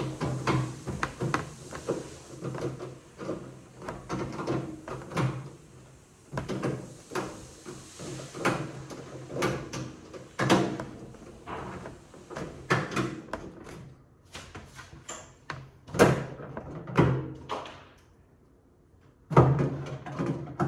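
Irregular knocks, clunks and clatter like a door or panel being opened, shut and handled, over a low hum. It goes almost quiet for a moment near the end before a loud knock.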